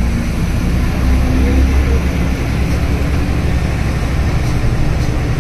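Steady engine and road rumble of a moving vehicle, heard from inside.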